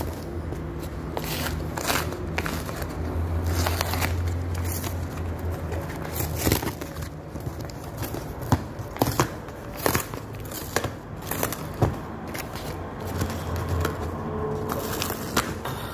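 Cardboard mailer being handled and torn open: crinkling, scraping and ripping of cardboard and packing tape, with several sharp snaps in the middle, over a low hum that comes and goes.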